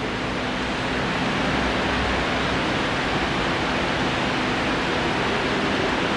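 Steady, fairly loud rushing noise with a faint low hum running through it.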